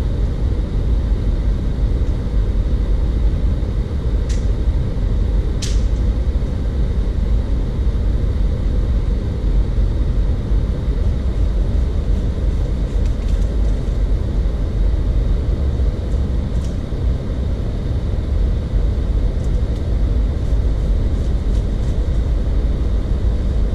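Jeep Wrangler driving along a dirt trail: a steady low rumble of engine and tyres, with two brief ticks about four and six seconds in.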